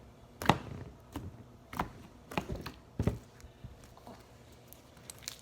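Homemade slime being pressed and folded in the hands, giving a series of sharp clicking pops from trapped air, about five loud ones roughly every half second to second with fainter ones between. The slime is a little stiff.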